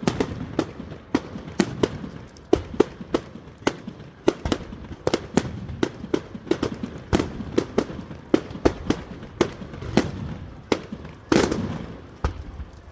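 Firecrackers going off in a rapid, irregular string of sharp bangs, about two or three a second, with one longer, louder blast near the end.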